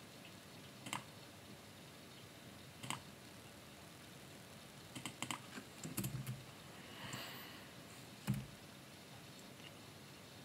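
Faint, scattered clicks of a computer keyboard and mouse: single clicks here and there and a quick cluster about five to six seconds in. The loudest is a sharper knock a little after eight seconds.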